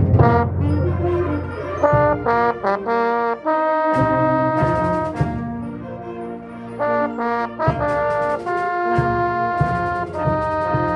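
Brass section led by trombones and trumpets playing a fanfare: a run of short, detached chords, then long held chords at full volume.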